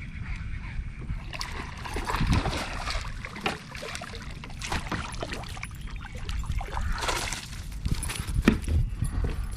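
Water splashing and sloshing in irregular bursts, the loudest about two seconds in and near the end, over a steady low rumble of wind buffeting the microphone.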